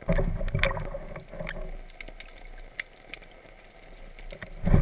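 Muffled underwater water rush against a camera housing as the diver moves, with scattered small clicks and knocks. The rushing is stronger in about the first second and again near the end.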